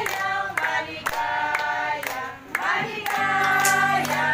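A group of women singing a birthday song together, clapping in time about twice a second.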